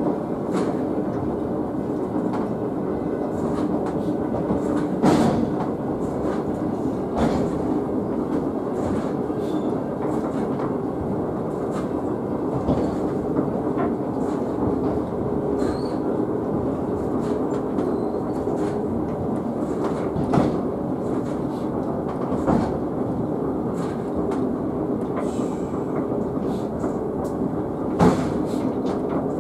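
Sakamoto Cable funicular car running downhill on its rails, heard from inside the front cab: a steady rumble and hum with an occasional clunk every few seconds.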